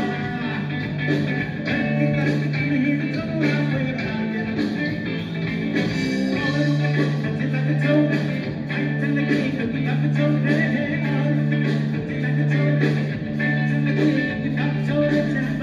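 Music: a rock-style song with singing and guitar over a steady, repeating bass line.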